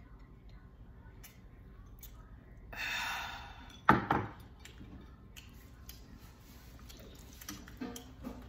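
A breathy exhale of about a second after a sip from a mug, followed by a sudden sharp knock, the loudest sound, about four seconds in.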